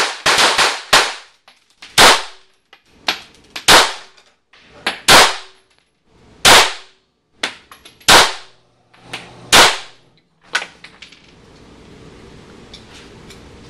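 Semi-automatic pistol firing at an indoor range: a quick string of four or five shots in the first second, then single shots about every one to one and a half seconds, each echoing off the range walls. Near the end the shooting stops, leaving a steady faint hiss.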